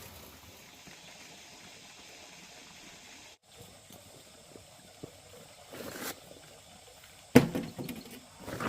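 Steady hiss of rain falling, with one sharp knock a little past seven seconds in.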